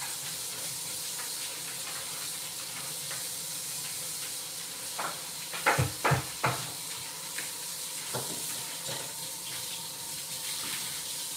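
Kitchen tap running into a sink while leafy greens are washed under it. About halfway through come three quick knocks, and another a couple of seconds later.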